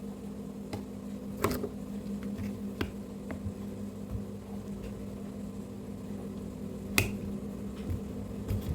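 Scattered light clicks and taps from hands and a utensil working a sticky, setting jaggery mixture, with sharper clicks about a second and a half in and about seven seconds in, over a steady low hum.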